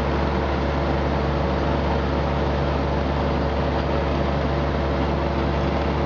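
John Deere X495 garden tractor's three-cylinder diesel engine running steadily under load as the tractor pushes snow with its front blade.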